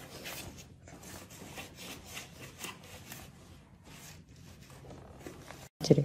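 Irregular rubbing and scraping as a baby's hands handle a plastic high chair, a string of short rasping strokes. Near the end the sound cuts out for a moment, then comes one brief loud burst.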